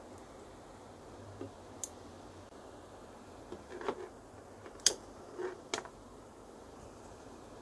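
A few light sharp clicks and taps as pliers are set down and the small inline rocker switch on a lamp cord is handled. The sharpest click comes about five seconds in.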